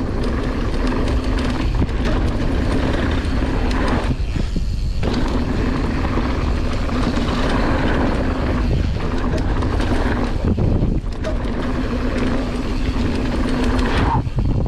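Wind rushing over the camera's microphone and mountain-bike tyres rolling on a packed dirt trail, with a steady hum that briefly drops out about four seconds in, again near eleven seconds and just before the end.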